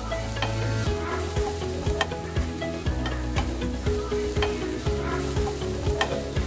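Spatula stirring and scraping mussels and onions around a nonstick kadai while they sizzle in the oil, with frequent irregular clicks of the spatula against the pan.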